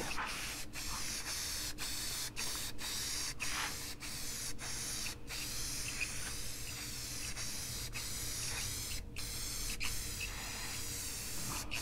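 Aerosol spray-paint can hissing as white paint is sprayed onto a cut-metal sign, in a run of short passes broken by many brief stops.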